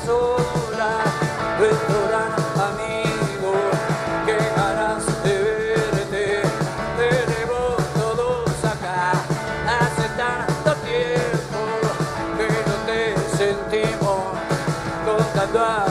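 Rock band playing an instrumental passage with a steady beat, its lead melody sliding up and down in pitch.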